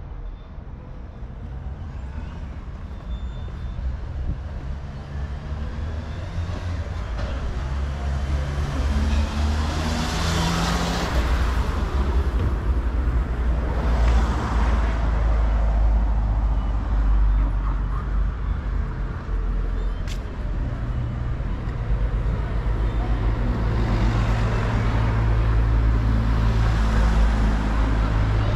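Road traffic passing close by: a low engine hum that grows louder, with vehicles swishing past about ten and fourteen seconds in and again near the end.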